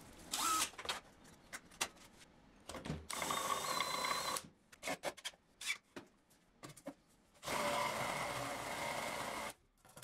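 Workshop power tools running in three short bursts, about a second, then about a second and a half, then about two seconds long, with scattered clicks and knocks in between.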